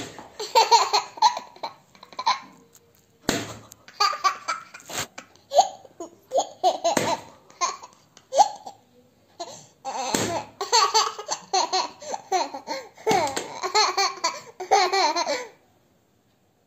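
Toddler laughing: bouts of high, gleeful baby laughter separated by short pauses, stopping shortly before the end.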